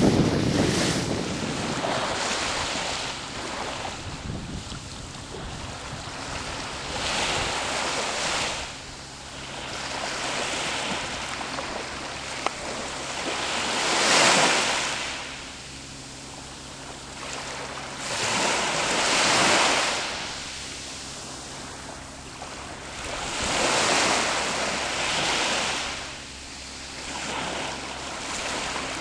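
Small sea waves breaking and washing up the shore, each surge swelling and fading every few seconds.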